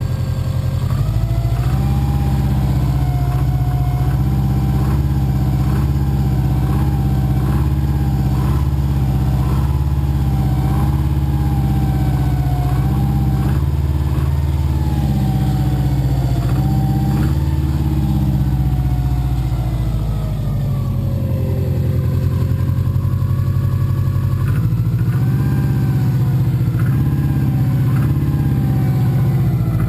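Subaru flat-four engine with Wiseco forged pistons running at idle in deep cold, a light knocking piston slap ticking over the engine note. The slap comes from the forged pistons' loose piston-to-wall clearance of .0025–.003 in, and is louder in cold weather. About two-thirds of the way through, the idle note sags lower, then recovers.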